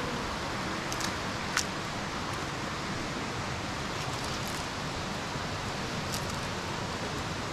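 Steady outdoor rushing noise, like running water or wind, with a few light clicks and taps. The sharpest click comes about a second and a half in.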